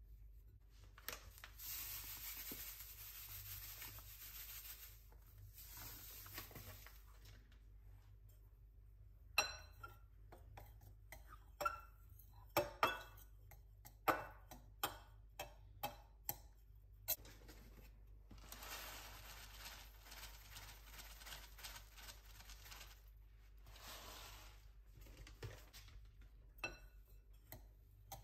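Soft rustling of fingertips rubbing butter into flour in a glass bowl, then a metal knife stirring the dry mixture. The knife taps and clinks against the glass about a dozen times, mostly in the middle and again near the end, with more rustling between.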